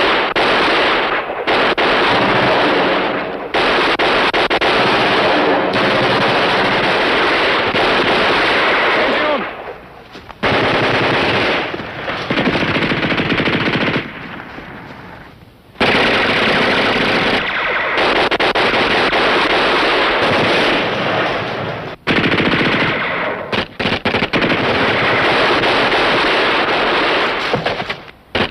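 Sustained automatic gunfire in long bursts of several seconds each, with brief breaks between them: machine guns firing in a firefight.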